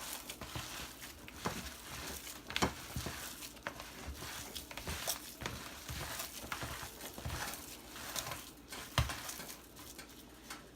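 Salmon patty mixture (canned salmon with eggs, onion and bell pepper) being stirred and mashed together in a bowl, with irregular clicks and rustling.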